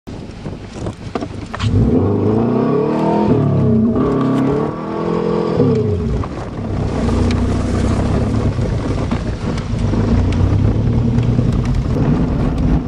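Subaru Legacy's boxer engine revved up and back down twice in quick succession, then running at a steady speed as the car drives on.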